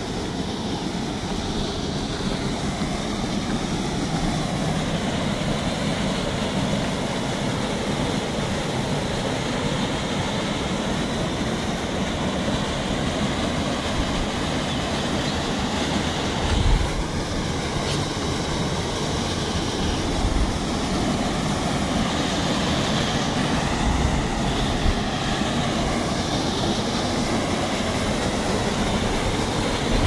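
Small waterfall and stream of water rushing over rock ledges into a pool, a steady even rush, with a few brief low rumbles of wind on the microphone about halfway through and later.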